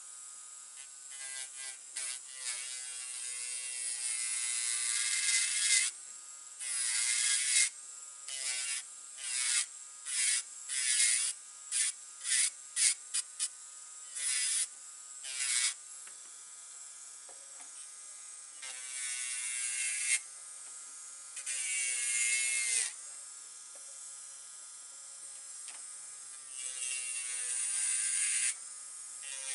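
Electric nail drill (e-file) running with a steady whine while its white barrel bit grinds on the nails in repeated passes, each pass a hissing rasp. There is a quick run of short strokes about a third of the way through and longer passes later.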